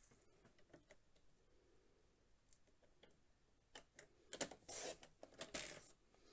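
Sliding-blade paper trimmer cutting a strip of cardstock: faint clicks as the card and rail are set, then a few short scraping strokes of the blade carriage along the rail a little after the middle.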